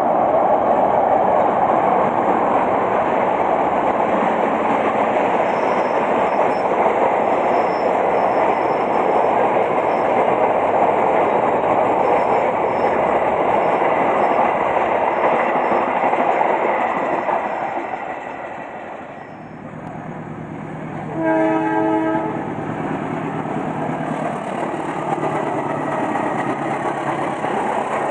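Passenger train hauled by a CC 206 diesel-electric locomotive passing close by: a loud steady rush of wheels on rail and rolling carriages that fades after about 18 seconds. About 21 seconds in, a train horn sounds one short blast, and a low steady engine hum runs under the rest.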